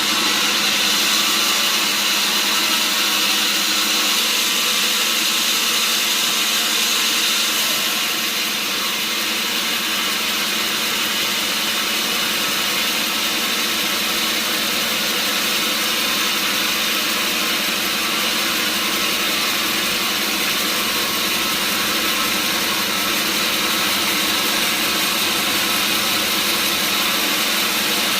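Engine-driven sawmill saw running steadily with a constant hum and a dense high hiss, changing slightly about eight seconds in.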